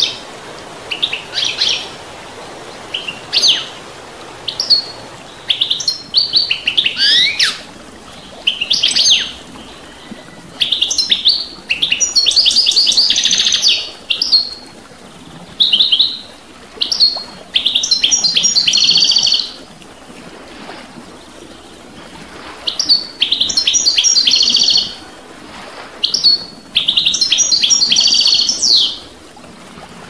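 European goldfinch singing: phrases of fast twittering and buzzy trills, each one to three seconds long with short pauses between them. A stream rushes steadily underneath.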